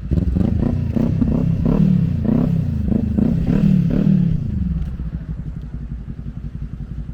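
A motor running close by, its pitch swelling up and down about every half second for nearly five seconds before it fades away.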